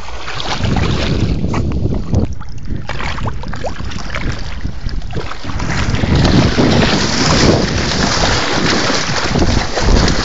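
Water splashing and sloshing irregularly as a French bulldog thrashes about in river water, with wind rumbling on the phone's microphone.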